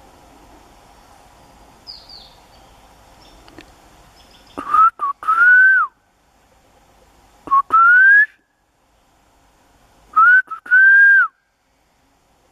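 A person whistling three times, about two seconds apart. Each whistle is a short upward note followed by a longer rising note.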